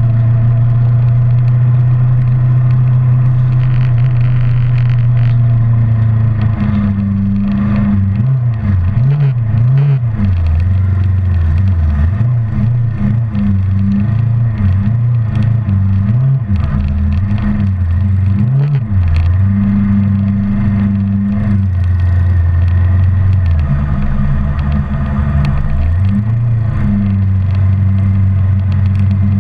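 Kawasaki 650R's parallel-twin engine running under way, heard from on board the moving motorcycle. Its pitch holds steady at first, then rises and falls repeatedly through the middle and settles again for a while before shifting once more near the end.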